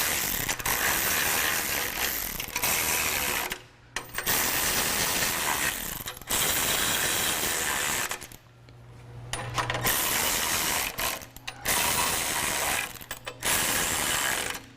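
Ratchet wrench clicking as bumper bolts are tightened, in several long runs with short pauses between them.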